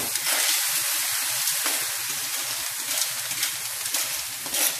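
Small sea snails in their shells sizzling in hot oil in a metal wok as they are stirred with a ladle, with a few short clicks and scrapes of shell and ladle against the pan.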